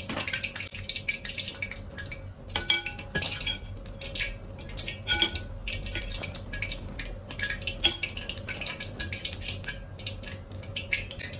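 Hands tossing raw eggplant strips with starch in a glass mixing bowl, making a run of small wet crackles and taps. Several short ringing clinks come from a metal spoon against the glass bowl.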